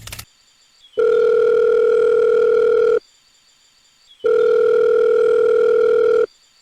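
Telephone ringing tone as heard by a caller: two long, steady beeps of about two seconds each, separated by a short silence.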